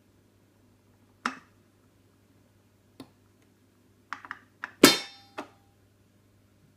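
A portable record player being handled: separate clicks and knocks, a quick cluster of them about four seconds in, then the loudest clunk with a short ring, over a faint steady electrical hum.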